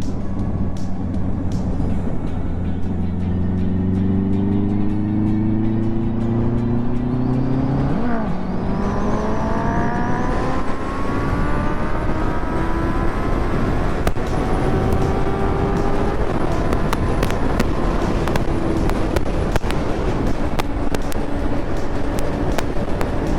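Honda CB650R inline-four motorcycle engine accelerating hard, its pitch rising through a gear, dropping sharply at an upshift about eight seconds in, then climbing through the next gear and settling to a steadier cruise. A steady rush of wind noise and sharp crackling clicks on the action-camera microphone run under it, the clicks growing more frequent near the end.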